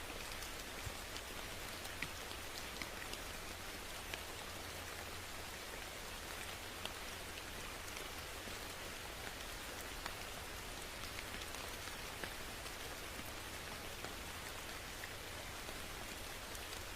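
Steady rain: an even hiss of falling rain with single drops ticking sharply on a surface every second or so.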